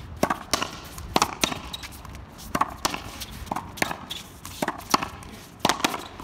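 Outdoor racquetball rally: a quick, irregular series of about a dozen sharp cracks as the ball is struck by racquets and smacks off the concrete front wall.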